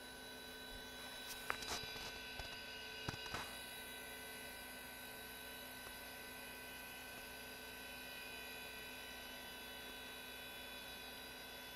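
Dell OptiPlex GX1 running with its Maxtor IDE hard drive spun up: a faint steady hum and whine with several fixed tones. A short run of clicks comes about one and a half to three and a half seconds in, fitting the drive's heads seeking.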